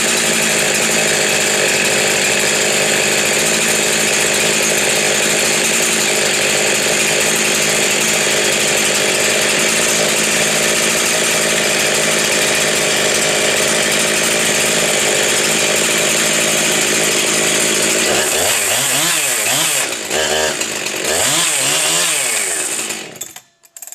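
Husqvarna 372 XPW two-stroke chainsaw running at high speed with a steady pitch. Near the end its pitch swoops down and back up several times as the throttle is let off and reapplied, then the engine stops just before the end.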